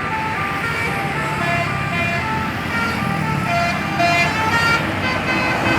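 Bus 'telolet' basuri horn, a multi-tone electric horn playing a melody of short stepped notes, several a second, over the running noise of a vehicle engine and traffic.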